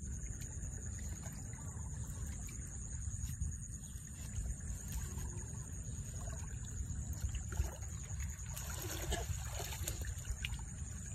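Shallow muddy paddy water sloshing and trickling as a woven bamboo fish trap is lifted and set down in it, with a few louder splashes about nine seconds in. A steady high-pitched whine runs underneath.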